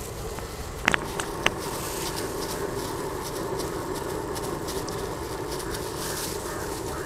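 Beef cutlets deep-frying in hot oil, a steady sizzle with fine crackling throughout and a low steady rushing underneath. A few sharp clicks come about a second in.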